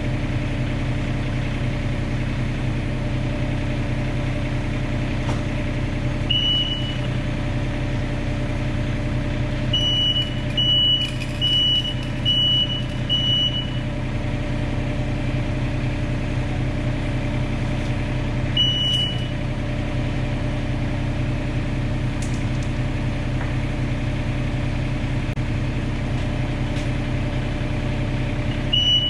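Komatsu PC27 mini excavator's diesel engine running steadily, with its travel alarm giving short, high beeps in bursts: once, then five in a row, then once more. The alarm sounds as the track drive is turned to roll the track over the wood blocks in the sprocket.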